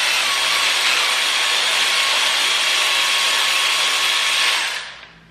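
Cordless power tool running steadily as it backs out a T50 Torx bolt holding a timing chain guide on the Golf R's 2.0 TSI engine, then stopping near the end.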